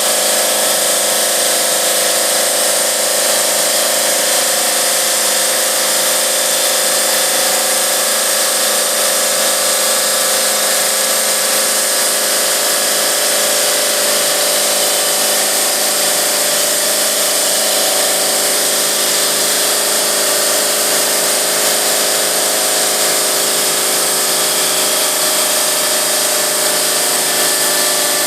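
GMM Brio Easy CNC bridge saw's diamond blade cutting through 4 cm granite under water spray: a loud, steady grinding hiss with a hum that drifts slightly in pitch.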